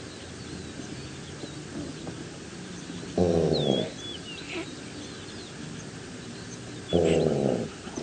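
An antelope giving two short, low calls about three and a half seconds apart, each falling in pitch, with birds chirping faintly in the background.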